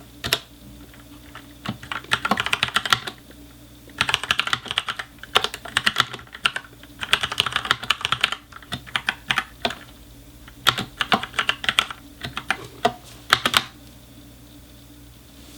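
Typing on an Ajazz K870T mechanical keyboard with Huano brown tactile switches: about eight runs of quick keystrokes with short pauses between them, stopping near the end.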